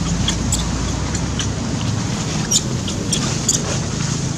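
Baby macaque giving several short, high squeaks over a steady rushing wind noise on the microphone.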